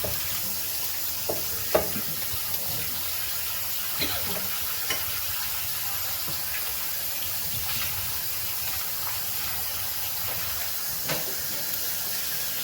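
Ground turkey sizzling in a hot frying pan, a steady hiss with a few short sharp taps.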